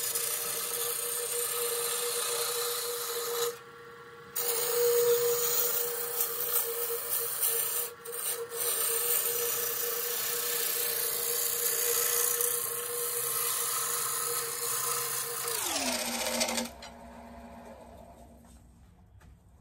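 Laguna Revo wood lathe spinning a dry tea tree branch while a gouge rough-turns it round: a steady motor hum under the rasping hiss of the cut, with a short break in the cutting about three and a half seconds in. Near the end the cutting stops and the lathe winds down, its hum falling in pitch.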